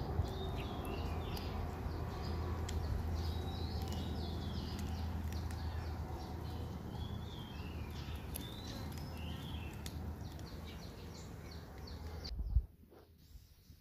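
A cat eating fish from a dish, chewing and lapping with small clicks, while birds chirp repeatedly in the background. Near the end the sound drops suddenly to a much quieter level.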